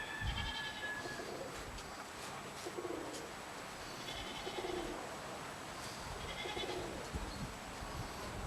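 Domestic pigeons cooing, a few short low coos, with a few higher-pitched animal calls in between and wind noise throughout.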